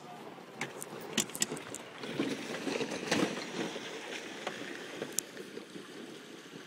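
Water splashing and churning as an electric golf cart drives into a shallow pond, swelling about two seconds in, loudest around three seconds and then easing off. A few sharp clicks and knocks come in the first second and a half, and one more near the five-second mark.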